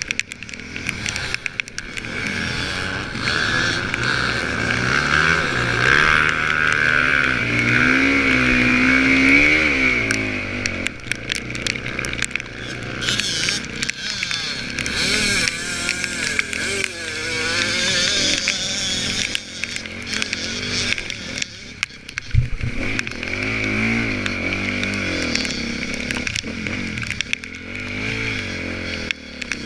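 Off-road dirt bike engine being ridden hard, its pitch rising and falling again and again as the throttle is opened and closed. A single sharp thump comes about three-quarters of the way through.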